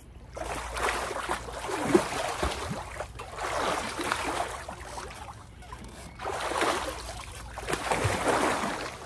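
Water splashing and churning as a swimmer kicks and paddles face-down across a pool, coming in about four surges of splashing, each a second or two long.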